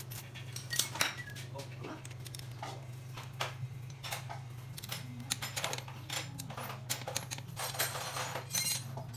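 Irregular metallic clicks and clinks of hand tools and bolts against the bare block of a Suzuki K6A engine as a long-handled wrench tightens the bottom-end bolts. A steady low hum runs underneath.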